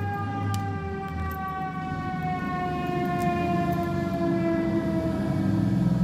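Fire truck's mechanical siren winding down, one long tone whose pitch falls slowly and steadily, over the low rumble of the truck's engine, which grows louder near the end as the truck approaches.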